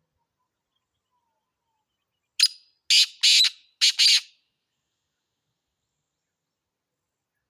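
Black francolin (kala teetar) calling: five quick, loud notes in about two seconds, a single note followed by two pairs.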